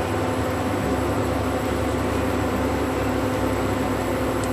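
Steady whir of an induction cooktop's cooling fan running, with a low electrical hum and a faint high whine.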